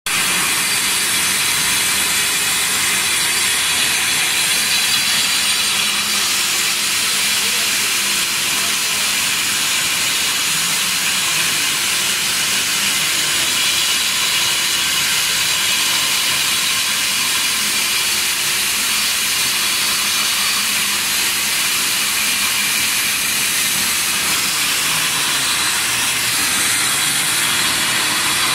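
A 250 single-phase floor grinder running steadily with its grinding head on concrete, giving an even, unbroken hissing noise that is strongest in the upper range.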